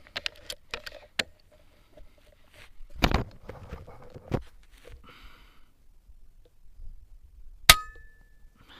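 A single rifle shot near the end: one sharp crack followed by a brief ringing tone, the loudest thing here. Before it come scattered sharp clicks and a short rustle.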